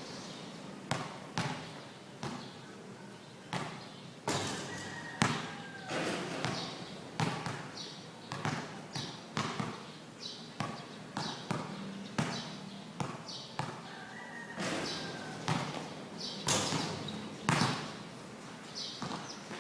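A basketball bouncing on a hard court during play, a string of sharp thuds at uneven intervals, about one a second.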